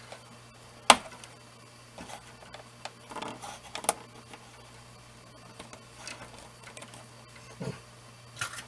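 Hands handling insulated hookup wire against wooden benchwork: one sharp click about a second in, then scattered short rustles and scrapes, over a steady low hum.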